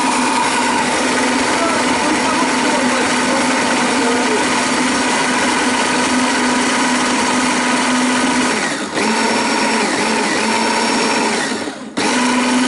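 Electric hand-blender motor (Vitek) running on its chopper bowl, grinding feijoa with sugar into a purée with a steady whine. It falters briefly about nine seconds in, stops for a moment near the end and starts again.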